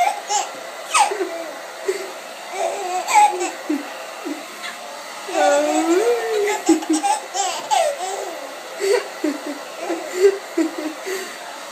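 A four-month-old baby laughing in repeated short, irregular bursts of giggles and squeals.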